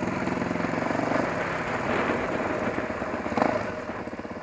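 Motorcycle engine running steadily, with a single sharp knock about three and a half seconds in.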